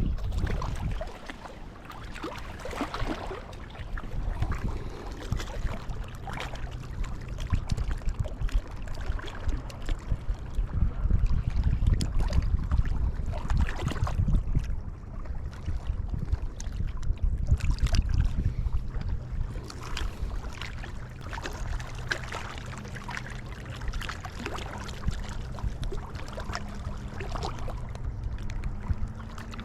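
Wind buffeting the microphone, a low rumble that rises and falls in gusts, with a faint steady hum underneath for most of it.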